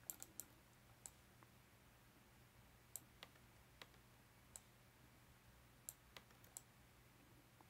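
Faint computer mouse clicks, about a dozen, scattered irregularly while connecting lines on a 3D model, over a faint steady low hum.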